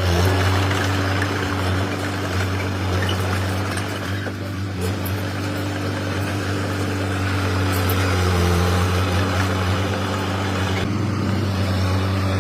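Komatsu D21P mini crawler bulldozer's diesel engine running steadily.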